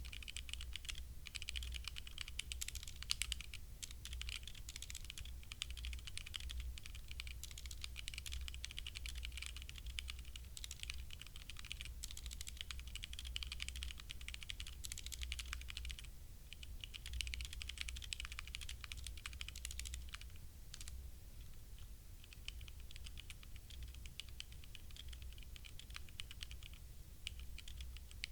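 Fast, continuous typing on a HyperX Alloy Origins Core mechanical keyboard with HyperX Red linear switches: a dense patter of keystroke clicks. There is a short pause about halfway through, and the typing grows lighter and sparser toward the end.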